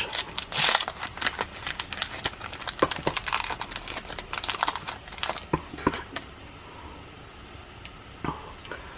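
Wrapper of a Prestige basketball card pack crinkling as it is torn open and the cards are pulled out, a dense run of fine crackles. About two-thirds of the way through it dies down to quieter card handling with a couple of light clicks near the end.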